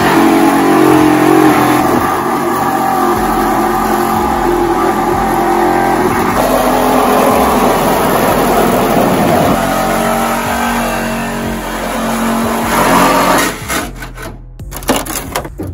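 Cordless reciprocating saw cutting through the steel sheet-metal bedside of a pickup truck, running loud and steady, then stopping about thirteen seconds in, followed by a few knocks.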